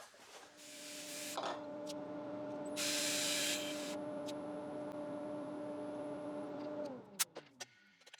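Wood lathe motor running with a steady hum, with a loud hiss about three seconds in. Near the end the lathe is switched off and its hum falls in pitch as it spins down.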